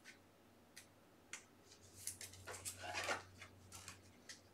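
Trading cards being flipped through by hand: faint soft clicks and short slides of card against card, a few at first and then quicker in the second half.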